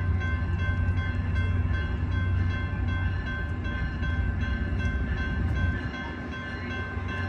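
MP36PH-3C diesel-electric locomotive pulling out, its EMD 16-cylinder two-stroke diesel running with a deep, steady rumble. Several steady high-pitched tones sound over it, and the level eases slightly about six seconds in.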